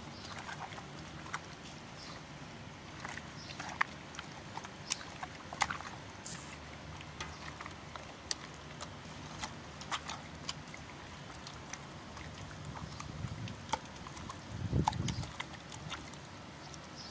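Raw whole chickens being massaged by hand in marinade in a stainless steel bowl: scattered wet squelches and sticky clicks, with a dull low thump about fifteen seconds in.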